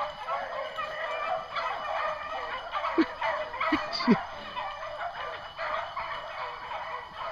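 A pack of beagles baying together in full cry on a rabbit's trail, many overlapping voices with no break.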